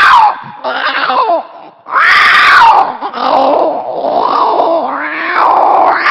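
A man's voice imitating velociraptor calls: about five loud screeches and growls in a row, each bending up and down in pitch.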